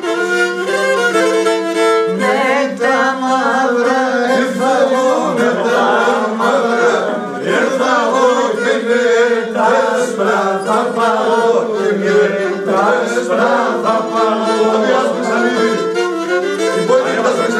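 Pontic lyra (kemenche) playing a traditional Pontic tune over a steady held low note, with a voice singing along.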